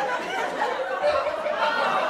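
Sitcom studio audience laughing, many voices chuckling and laughing together at once.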